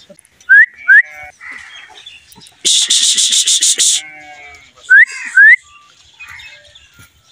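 Two pairs of short, loud rising whistle notes, the pairs about four and a half seconds apart, with about a second of dense pulsing hiss between them.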